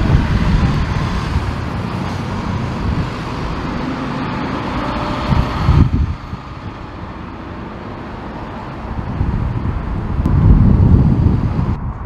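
Twin-engine Boeing jet airliner climbing away at high thrust, its engines a loud steady rush; the higher part of the sound falls away about six seconds in. Gusty wind buffets the microphone, strongest near the end.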